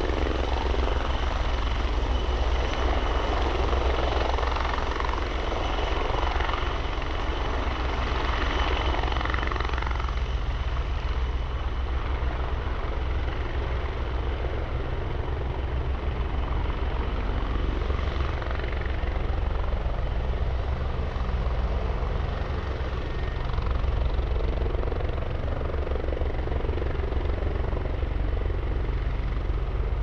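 Bell 430 twin-turbine helicopter hovering low and air-taxiing in to land: a steady low rotor beat with a thin, steady high turbine whine over it.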